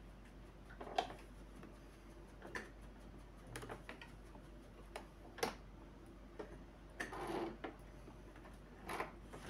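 Domestic electric sewing machine stitching slowly through polar fleece: soft, uneven clicks about once a second, with a brief rustle of fabric a little after the middle.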